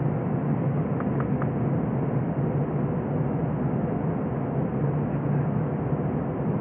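Steady cabin noise of an Airbus A321 climbing out after takeoff, heard inside the cabin by the window over the wing: the engines' low drone with the hiss of airflow over the fuselage, unchanging throughout.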